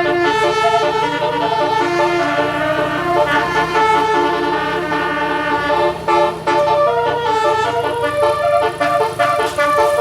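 Indonesian bus telolet horn playing a run of melodic multi-tone notes that step from pitch to pitch, over a low steady hum.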